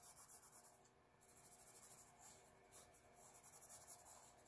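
Faint pencil shading on paper: rapid back-and-forth scratching strokes of the graphite filling in an area, in runs with a short break about a second in.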